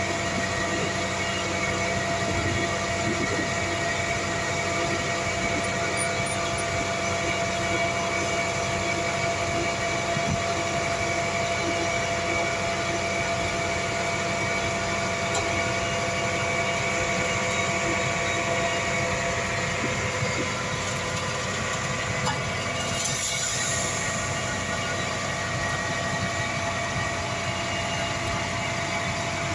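Diesel engines of a dump truck and an asphalt paver running steadily, with a constant high whine layered over the engine noise, while the truck tips its bed to feed asphalt into the paver's hopper. A brief hiss comes about two-thirds of the way through.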